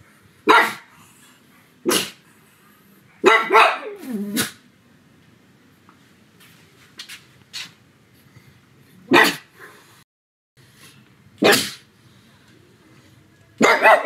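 Pug barking in short, sharp single barks. A quick run of three comes about three to four seconds in, then the barks are further apart, with a long pause in the middle.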